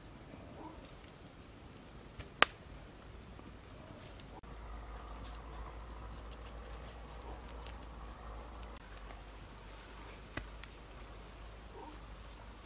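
Insects chirping steadily in the background, with a sharp knock about two seconds in and a fainter one later.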